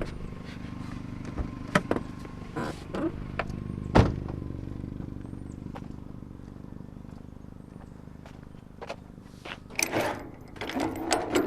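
A car engine running steadily, with scattered knocks, one loud thud about four seconds in, and a burst of clatter near the end.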